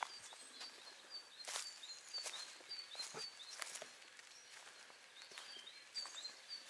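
Small bird chirping, short high notes repeated several times a second, over a few scattered footsteps on the ground.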